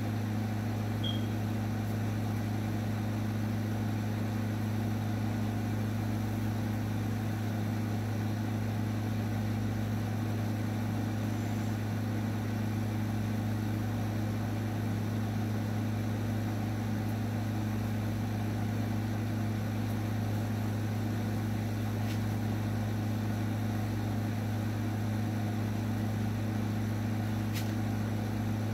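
Electric dog-grooming clippers running steadily while the dog's head is trimmed, a constant low hum.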